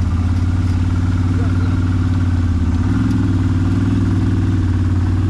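CFMoto CForce 1000 ATV running under load with a steady low drone as its winch hauls the stuck quad up a steep, muddy slope.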